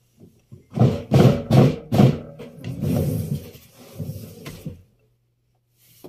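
Electrolux washing machine with its drum turning: a run of irregular clunks and rattles, several about 0.4 s apart, over a low motor hum, which is left on its own near the end.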